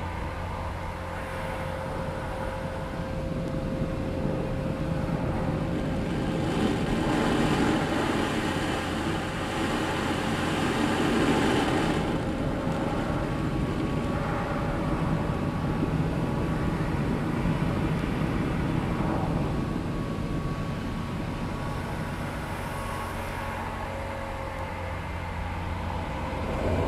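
Gas-powered leaf blower running just outside, heard through a closed bus door as it is moved along the door seam to find an air leak, swelling louder for a few seconds and then easing off.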